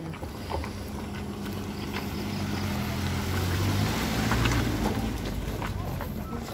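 A car passing close by: its engine hum and tyre noise swell to a peak about four and a half seconds in, then fade.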